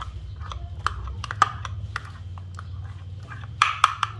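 A kitchen utensil scraping and clinking against a glass mixing bowl as thick cake batter is scooped out into a baking tin. There is a run of light taps, two sharper clinks near the end, and a steady low hum underneath.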